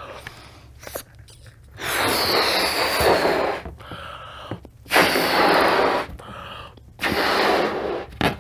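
A person blowing up a latex balloon by mouth: three long, breathy blows of air into it, with short pauses between them.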